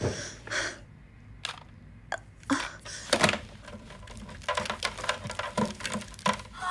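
Irregular clicks, light knocks and rustling of small objects being handled on a table, some of it plastic-sounding.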